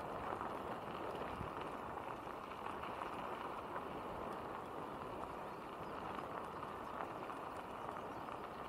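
Bicycle tyres rolling over a rough, gravelly path: a steady rolling noise with many small rattles and ticks.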